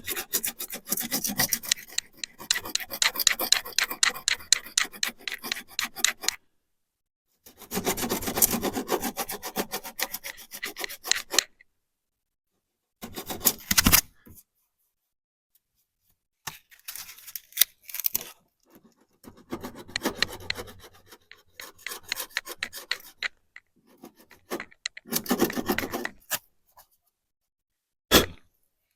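Coarse abrasive scrubbing rust and paint off a car's steel wheel arch, taking back a rust bubble in rapid rasping strokes. The strokes come in a run of bursts of a few seconds each, broken by short silences.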